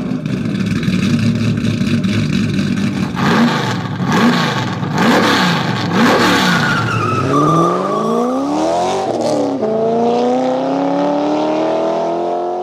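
Racing car engine sound under an animated outro: a steady note at first, then the pitch swinging up and down about once a second as it revs. Next come several rising and falling notes crossing one another, and it ends on a slow, steady climb in pitch.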